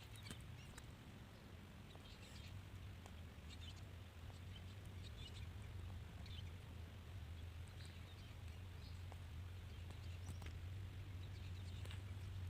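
Faint ambience: a steady low hum with scattered small clicks and short high chirps.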